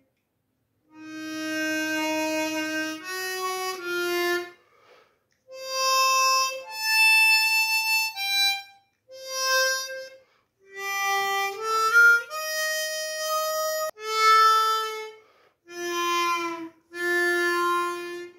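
Seydel Saxony chromatic harmonica (orchestra version in C reaching down to G, stainless steel reeds) played as a sound check: about a dozen separate held notes and chords with short breaks, including a quick stepwise climb in the middle. The reeds speak at once and the instrument sounds airtight.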